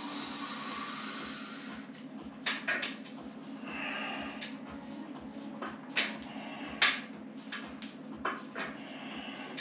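A man breathing hard and blowing out forcefully as he strains through heavy bench-press reps on a plate-loaded lever machine. Several sharp snaps are heard, the loudest about six and seven seconds in, over a steady low hum with an even pulse.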